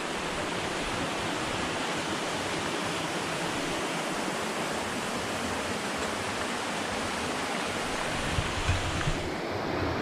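Rushing water of a waterfall: a steady, even hiss. A few low bumps come near the end, and about nine seconds in the sound turns duller as its highest part falls away.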